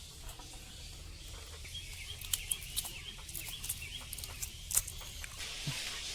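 Boiled eggshells being cracked and peeled: faint, scattered sharp clicks and cracks, busiest in the middle. Birds chirp lightly in the background.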